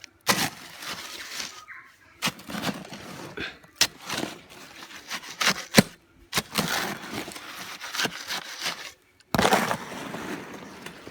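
Hand-mixing concrete: a tool scraping through wet cement and aggregate in irregular strokes, with a few sharp knocks and short pauses between them.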